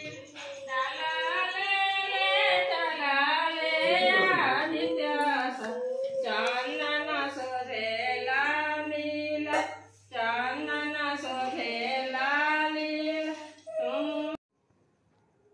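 A woman singing a Chhath puja devotional song in long, drawn-out melodic phrases, with a brief pause about two-thirds of the way through. The singing cuts off suddenly near the end.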